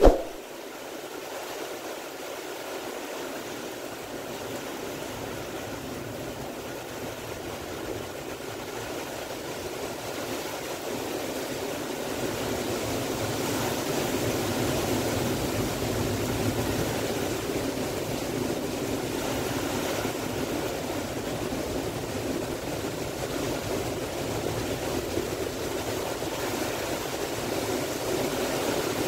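Heavy typhoon rain and wind through trees, a steady rushing that grows louder about twelve seconds in. A single sharp knock right at the start.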